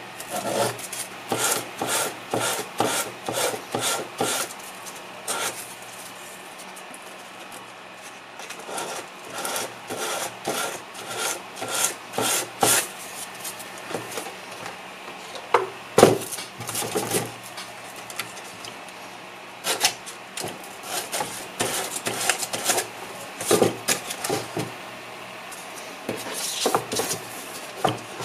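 Sanding the plastic coating off a copper trace on an instrument cluster's printed circuit to bare it for soldering: runs of short rasping back-and-forth strokes, about two a second, with pauses between them. There is a single sharper knock about sixteen seconds in.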